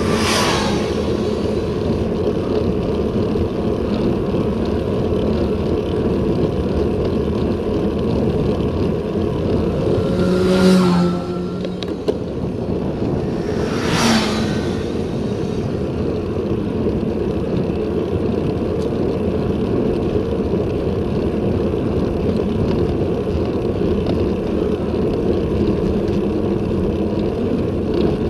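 Steady low rumble of wind and road noise on a bicycle-mounted action camera riding at about 20 km/h, with motor vehicles passing three times: right at the start, about ten seconds in (the loudest, with an engine hum) and about fourteen seconds in.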